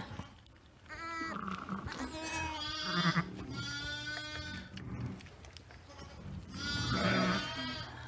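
A ewe and her newborn twin lambs bleating, about four calls, the longest about four seconds in.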